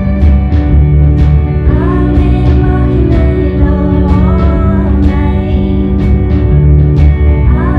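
Live band playing through a PA: drums keeping a steady beat under electric bass, guitars and keyboard, with a woman singing over them.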